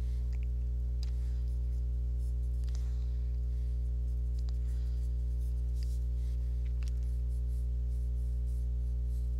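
Mechanical pencil scratching on sketchbook paper in short, scattered strokes, over a steady low hum.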